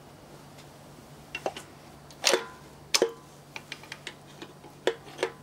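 A steel hand tool clinking and tapping against the crankshaft and main bearing caps of a stripped-down Daewoo Lanos engine block. There are two loud metallic clinks with a short ring about two and three seconds in, then lighter ticks and two more clinks near the end.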